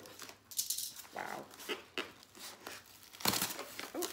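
Packaging rustling and crinkling in short bursts as an item is unpacked from a box. The loudest rustle comes about three seconds in.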